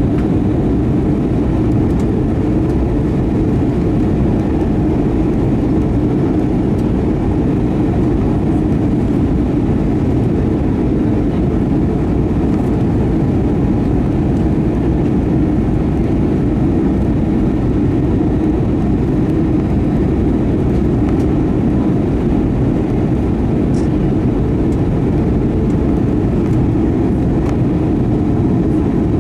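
Steady cabin drone of an Airbus A320-232 on approach: the hum of its IAE V2500 turbofans and the rush of air past the fuselage, heard from a window seat inside the cabin, deep and even with no change in level.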